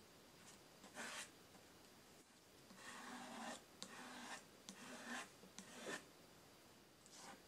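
Flat wooden spatula scraping and spreading urushi lacquer paste across a board: a series of about six faint, short scraping strokes, the longest around half a second.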